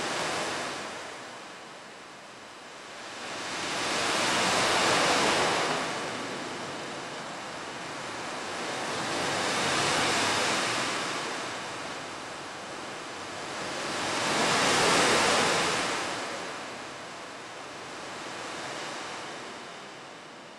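Ocean surf: waves washing in on a shore, the rushing swelling up and falling away about every five seconds.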